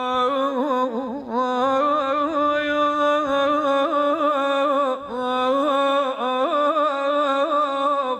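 A man chanting an Iraqi Shia mourning lament, holding a long wordless line that wavers and turns in ornaments, his voice alone with no instruments. There are short breaks about a second in and again at about five seconds.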